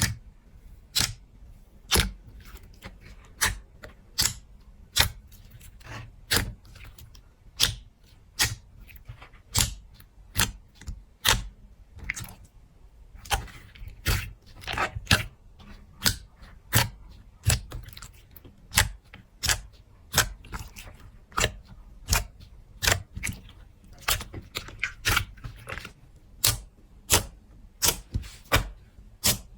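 Slime being pressed and poked by hand, giving a run of sharp clicking pops, about one to two a second at an uneven pace.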